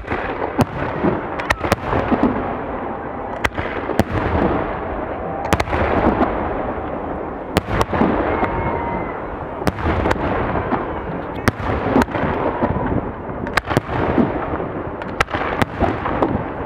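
Fireworks display: shells bursting in a rapid, irregular series of sharp bangs, at times several a second, over a continuous rumble and crackle.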